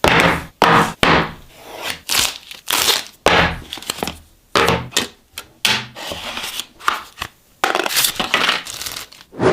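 Phone packaging being opened by hand: wrapping crinkling and tearing in a quick run of short, irregular bursts.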